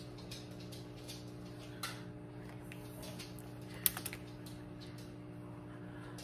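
Light clicks and taps from handling a makeup tube and its applicator wand, the sharpest about four seconds in, over a steady low hum.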